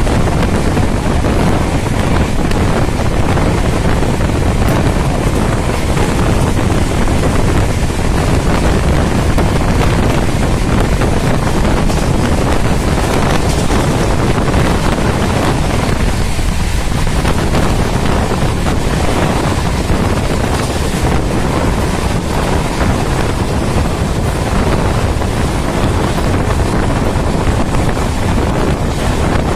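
Passenger train running along the track: a loud, steady rush of wheel and rail noise with wind buffeting the microphone.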